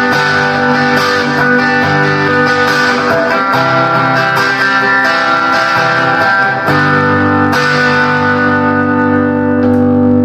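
Epiphone electric guitar played through a Roland amplifier on a crunch (light overdrive) setting, with its push-pull tone knob pulled up and the switch on. Sustained strummed chords ring out, changing chord twice.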